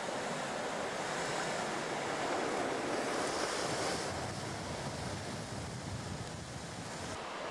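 Sea surf breaking and washing over rocks: a steady rushing noise that swells a little a few seconds in.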